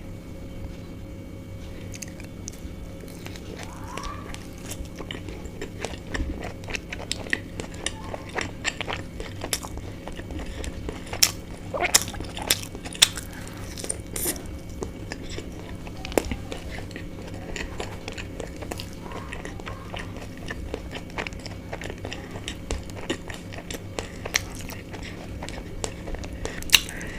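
Close-up biting and chewing of soft chicken bao buns: irregular wet mouth clicks and smacks, louder through the middle, over a steady low hum.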